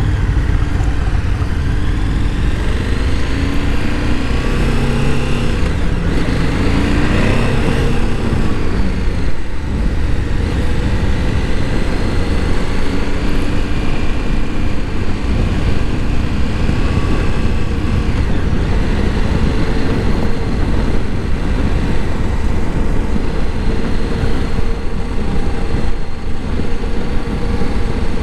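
KTM 1290 Super Adventure S's V-twin engine accelerating through the gears, its pitch climbing and dropping back at each shift over the first nine seconds or so, then holding steady at cruising speed. A heavy low rumble of wind on the helmet microphone runs underneath.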